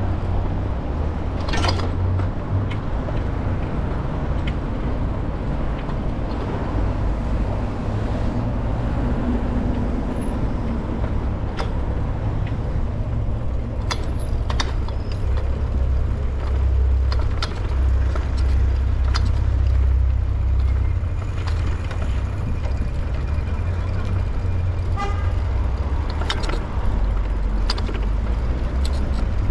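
Wind buffeting the microphone of a camera on a moving bicycle, over steady road and tyre noise, with scattered sharp clicks and rattles.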